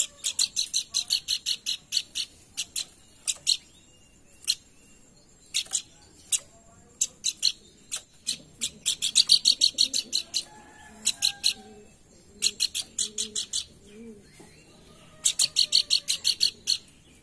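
Pelanduk bukit calling in rapid runs of sharp, high chips, about seven a second, each run lasting one to two seconds, with scattered single chips between the runs. Faint low notes sound underneath from about halfway in.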